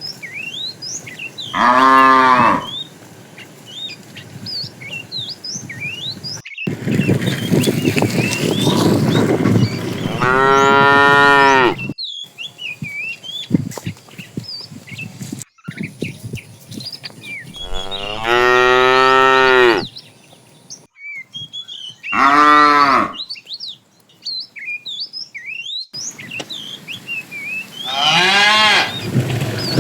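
Cattle mooing: five long, drawn-out moos from the herd, each falling slightly in pitch, with small birds chirping throughout.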